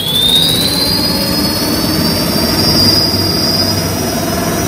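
QS 8 kW electric hub motor spinning a motorcycle's rear wheel up off the ground: a high electric whine that climbs in pitch over the first two seconds as the motor speeds up, then holds steady, over a rushing, rattling noise from the spinning wheel.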